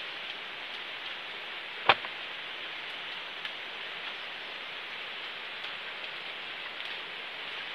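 Steady hiss with a faint scatter of small ticks, and one sharp click about two seconds in.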